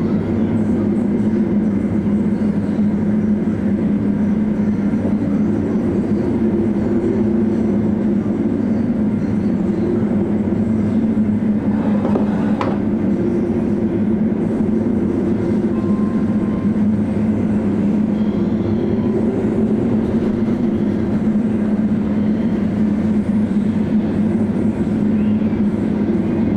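Ferry's engines and machinery droning steadily, heard from on board, with one sharp knock about halfway through.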